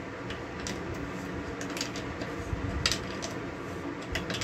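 Scattered metallic clicks and clinks of a socket wrench tightening the nut on a threaded through-rod that clamps a cracked peripheral water pump housing together, over a steady low hum.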